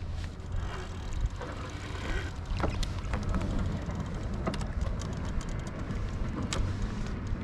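Water sloshing and splashing around a kayak hull over a steady low rumble, with scattered sharp clicks and knocks.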